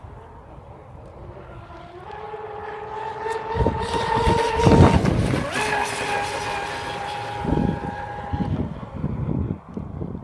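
Pro Boat Zelos 48 RC catamaran's twin brushless motors whining at full throttle on 8S batteries as the boat runs past at speed: the pitch climbs early on, holds, drops slightly as it goes by, then fades. Bursts of low rumble run underneath.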